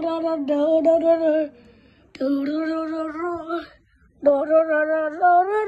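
A high voice singing three held, fairly level notes in short phrases with brief pauses between them, like a slow lullaby-style tune.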